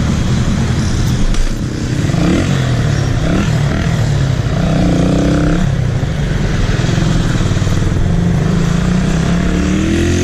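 Motorcycle engine running under way, a steady low drone whose pitch rises several times as it accelerates.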